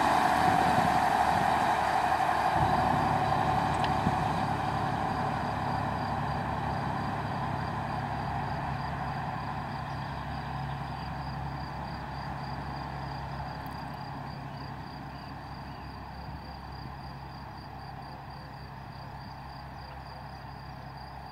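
Slovenian Railways class 711 diesel multiple unit pulling away: its engine hum and running noise on the rails fade steadily as the train recedes down the line.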